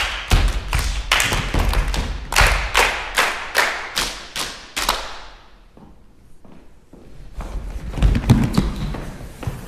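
Rhythmic hand claps and foot stomps on a wooden stage in a body-percussion routine: a sharp, even beat of about three to four strokes a second that stops about five seconds in. A few heavier thumps follow around eight seconds in.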